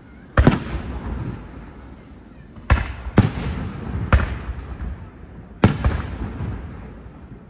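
Aerial firework shells bursting overhead: five sharp bangs at uneven intervals, each followed by a fading rumble.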